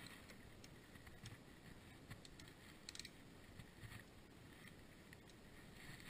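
Near silence with a few faint, irregular metal clicks from a 10 mm wrench working the nut on a car battery terminal clamp.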